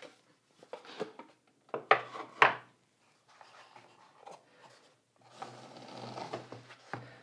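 Cardboard packaging being handled: two sharp knocks about two seconds in, then a longer rubbing as the fabric-covered headphone case is slid out of its box.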